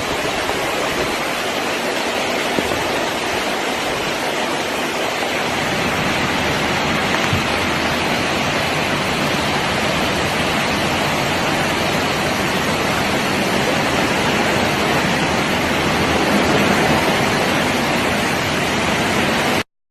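Heavy water rushing in a steady, unbroken roar, like a torrent in flood.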